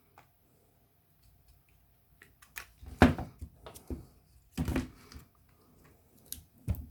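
Pliers and a battery pack being worked to pry a cell loose. Quiet at first, then a run of clicks and scrapes with three heavier knocks: the loudest about three seconds in, one about a second and a half later, and one near the end.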